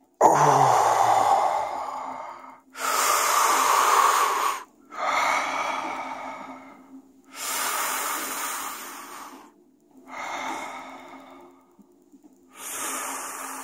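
A person breathing deeply and heavily close to the microphone, ending a long breath hold: a sudden, loud intake of breath, then about five more long breaths of a couple of seconds each with short pauses between. This is recovery breathing after a Wim Hof breath retention, with blood oxygen climbing back from about 51 percent.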